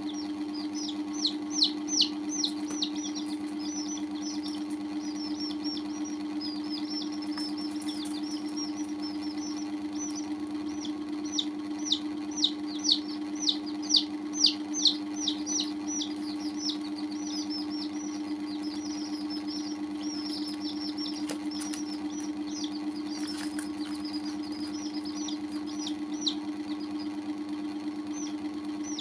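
Domestic chicks peeping: a continual string of short high peeps that fall in pitch, with two runs of louder, quicker peeps, one near the start and one about halfway through. A steady low hum runs underneath.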